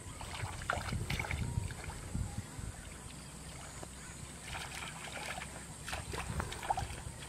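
Shallow muddy water sloshing and splashing in irregular bursts as legs wade and hands grope through it.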